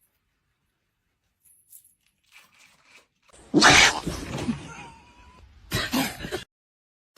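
Near silence, then a loud, rough animal call about three and a half seconds in that trails off, and a second, shorter one near the end.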